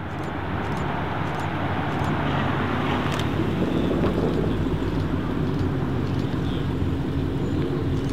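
Dodge Charger SRT Hellcat's supercharged 6.2-litre Hemi V8 running at low revs through an aftermarket Vicrez exhaust as the car rolls slowly past, a steady deep exhaust note with no revving.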